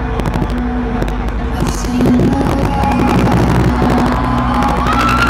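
Loud electronic dance music over an arena sound system, with heavy booming bass that overloads the recording and makes it distorted.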